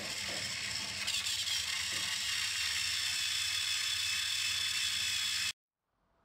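Small electric motors and plastic gearboxes of two battery-powered TrackMaster toy train engines whirring with a steady high whine. There is a light knock about a second in, after which the whine grows stronger as the engines push head-on against each other. The sound cuts off suddenly near the end.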